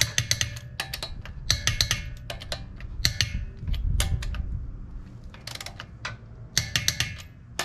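Hand ratchet wrench clicking in short bursts of rapid clicks, several times over, as bolts are run on during a wheel hub installation.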